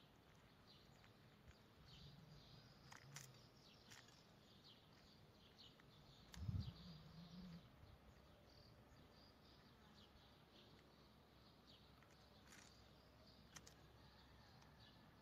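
Near silence: room tone with faint light clicks and rustles, and one soft low thump about six and a half seconds in.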